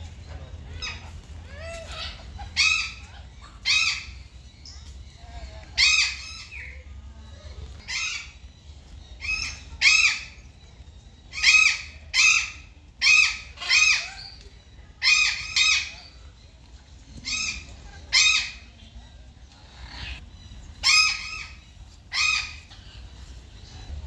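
Indian peafowl calling: a long series of short, loud, ringing calls, many of them in quick pairs.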